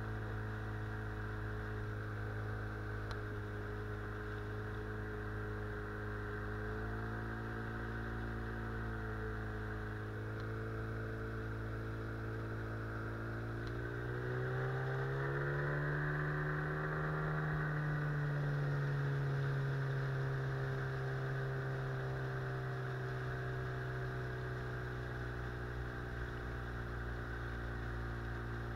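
Small outboard motor on an inflatable boat running steadily under way, its pitch rising about fourteen seconds in as it speeds up, then easing back down.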